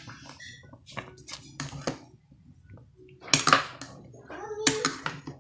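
Metal spoon clinking and scraping against a stainless steel pot while stirring thick ogbono soup: several separate knocks, the loudest a little over three seconds in.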